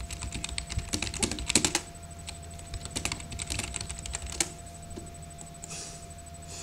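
Typing on a computer keyboard: two quick runs of keystrokes, the second ending about four and a half seconds in.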